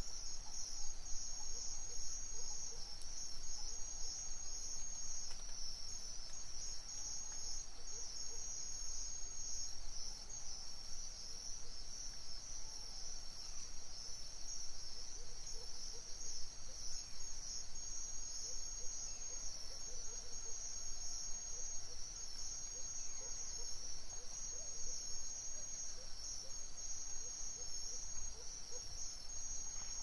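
Chorus of crickets chirping: a steady, high, fast-pulsing trill that carries on unbroken, with a few faint, short lower chirps scattered through it.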